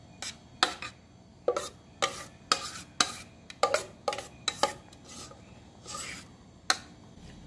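A utensil scraping and clinking against cookware as thick, cooked orange-milk cornstarch pudding is scooped into a mold. There are about ten short, irregular scrapes and knocks.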